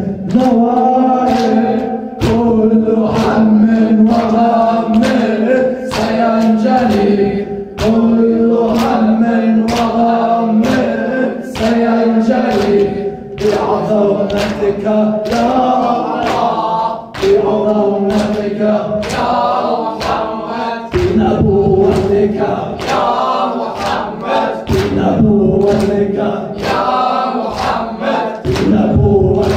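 Latmiya, a Shia mourning chant: a male lead sings into a microphone, with other men's voices chanting along. Behind the singing is a steady beat of hand-on-chest strikes (latm), a little faster than one a second.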